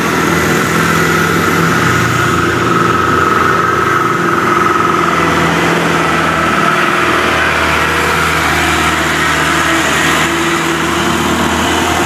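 Old Mitsubishi light truck's engine pulling steadily uphill as it passes close by, with motorcycles going by.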